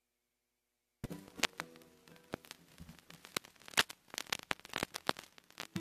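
Vinyl LP surface noise: the turntable stylus riding the lead-in groove, with scattered clicks and pops starting about a second in, before the music begins.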